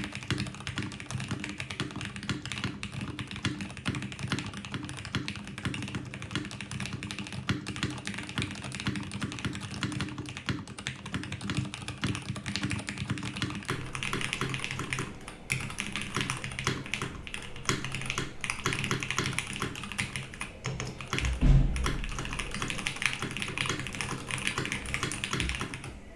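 Mode Sonnet mechanical keyboard being typed on at a steady pace: lubed Cherry Nixie switches on a carbon fibre plate under Monokei keycaps, with a dense run of keystroke clacks. One louder low thump comes about two-thirds of the way through.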